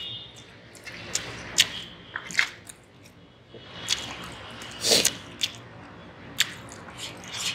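Close-miked eating sounds: chewing and wet mouth smacks on a mouthful of khichdi, with soft squishes of fingers mixing the rice and lentils on the plate. Sharp wet clicks come at irregular intervals, the loudest about five seconds in.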